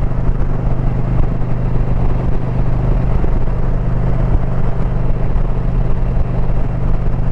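Indian Pursuit motorcycle's V-twin engine running steadily at cruising speed, with a constant hum and an even rush of wind and road noise.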